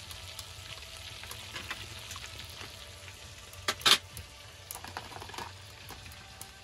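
Perch pieces frying in oil in a cast-iron skillet, a steady crackling sizzle. About four seconds in, two sharp clacks stand out as the loudest sound, with a few lighter ticks a second later.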